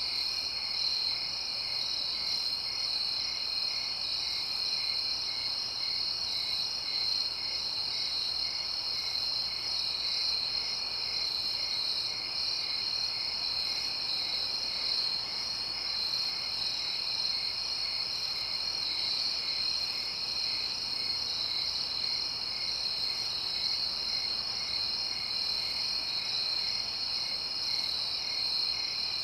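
Night-time chorus of crickets: a steady high trilling, with one chirp repeating evenly about twice a second beneath it.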